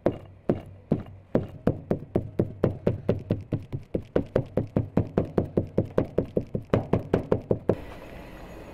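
A homemade bread stamp, a ring of pins on a handle, tapped over and over into flat dough on a wooden board, making a run of sharp, even knocks. The first few are spaced apart, then they come about four a second, and they stop shortly before the end.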